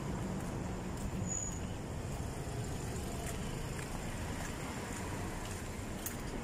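Steady low outdoor rumble with no speech, and a few faint ticks scattered through it.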